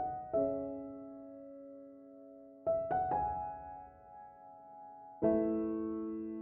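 Slow background piano music: soft chords are struck every couple of seconds and left to ring out and fade.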